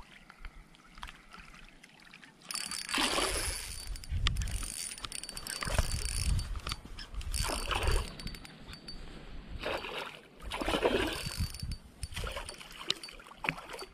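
Water sloshing and splashing in repeated surges a second or two apart, starting a couple of seconds in after a quiet opening.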